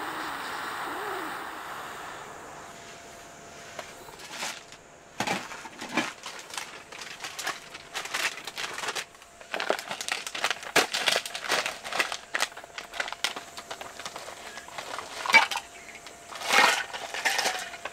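Tent gear being handled during setup: irregular rustling and crinkling of fabric with clicks, clinks and knocks, the loudest knocks near the end.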